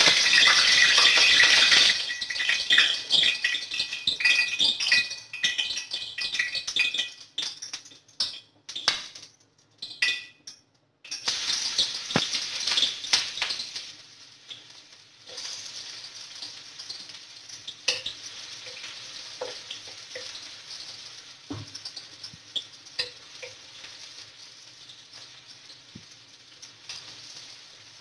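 Chopped onion frying in hot oil in a stainless steel wok, loudest in the first two seconds and again about eleven seconds in. It then settles into a quieter steady sizzle with the light scrape and tap of a wooden spatula stirring.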